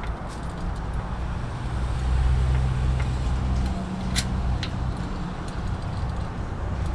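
A steady low rumble with a humming tone that swells about a second and a half in and eases after about four seconds. A couple of sharp clicks come about four seconds in, the squeeze and snap of a hand pop-rivet gun setting a rivet.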